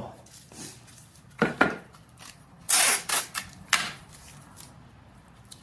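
Clear Scotch tape pulled off its dispenser roll and torn off in a loud rip about halfway through, with a few short taps and rustles from handling the paper-covered board.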